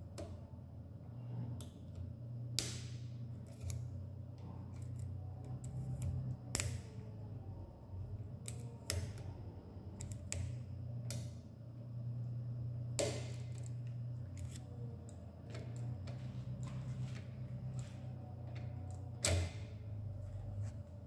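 A Lishi VA2T pick working the wafers of a Citroën, Renault or Peugeot lock cylinder: irregular small metallic clicks and ticks, with a few sharper clicks, over a low steady hum.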